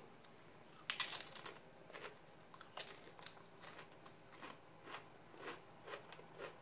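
A crisp Paqui ghost pepper tortilla chip bitten with a loud crunch about a second in, then chewed in a run of crunches about two a second that grow softer.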